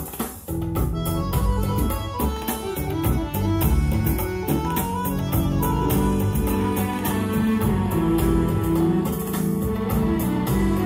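Recorded music playing through the amplifier and speakers of a vintage National SG-250W stereo receiver, fed from its added USB/Bluetooth digital audio player module.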